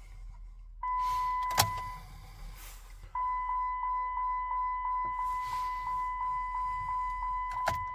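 Jeep Patriot's key-in-ignition warning chime, a steady high tone that comes on about a second in, breaks off briefly, then sounds again with a quick pulse of about three beats a second, signalling that the key is left in the ignition. A sharp click comes partway through the first tone.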